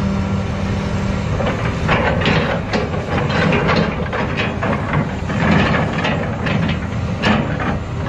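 Hitachi crawler excavator with its engine running while its grapple attachment works the ground, with irregular clanking over a steady low engine hum.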